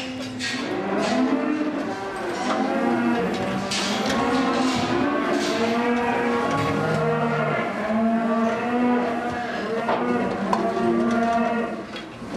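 Many calves bawling at once, overlapping calls without a break, with a few brief knocks among them.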